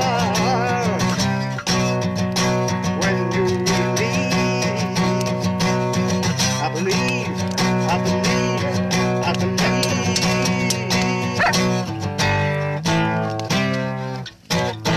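Acoustic guitar strummed in chords, with a man singing over it. The strumming breaks off briefly near the end before picking up again.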